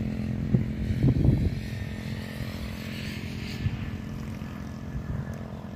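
A steady engine drone with a low hum and overtones, fading a little toward the end, with a brief louder wavering sound about a second in.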